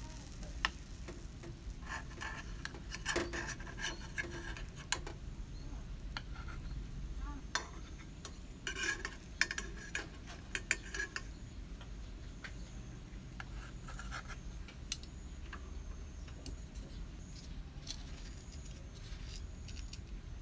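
A metal spoon and knife scraping and clinking against the cups of a metal bandros pancake mould as the cooked rice-coconut cakes are prised out, with sharp clinks scattered through and busier scraping twice, early and about halfway.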